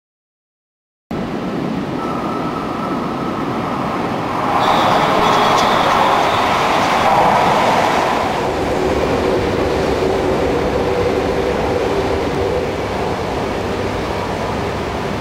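After about a second of silence, a Shinkansen bullet train goes by: a loud rush of wheel and air noise that swells about four to five seconds in, peaks for a few seconds, then settles into the steady rumble of the cars rolling past.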